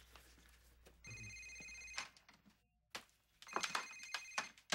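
A cell phone ringing with a repeating electronic ringtone: two rings about two and a half seconds apart, each lasting about a second, with a few light knocks during the second ring.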